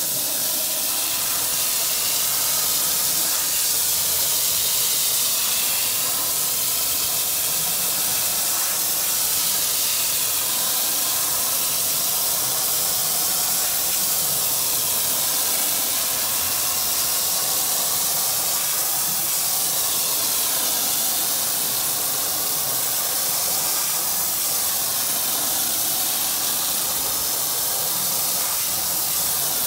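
Jet of water from a pistol-grip garden hose nozzle hissing steadily as it hits a rug. The sound swells and eases slowly every few seconds as the jet is swept across the rug.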